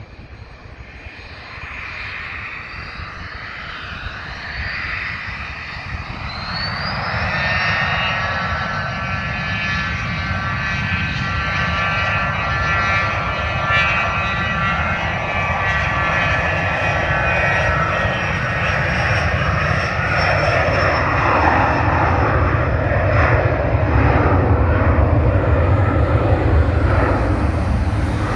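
Twin Garrett TFE731 turbofans of an IAI 1124A Westwind business jet spool up to takeoff power and carry it down the runway on its takeoff roll, getting steadily louder. A rising whine comes about six seconds in, then a steady set of whining tones, and a deep rumble builds as the jet draws nearer.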